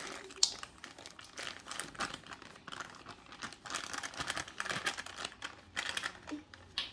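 Irregular crinkling and rustling of packaging being handled, in uneven runs of small crackles.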